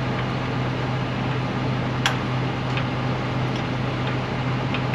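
Tractor engine idling steadily, with a few light clicks of metal.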